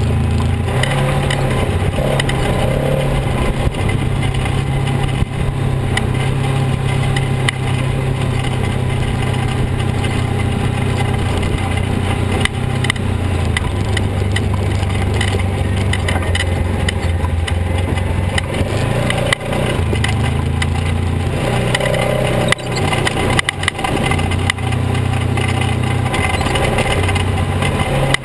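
Polaris RZR XP 900 side-by-side's twin-cylinder engine running at low speed as it creeps over a rough trail, its note stepping up and down as the throttle is eased on and off. A few sharp knocks from the vehicle jolting over rocks come in the second half.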